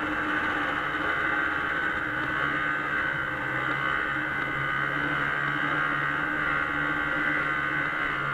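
Engine of a 1996 Arctic Cat Bearcat 340 snowmobile, a Suzuki-built two-stroke, running at an even speed while riding. It gives a steady drone that holds one pitch.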